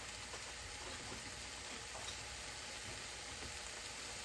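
Sliced baby mushrooms sizzling steadily in oil in a nonstick frying pan, with a few faint ticks and pops.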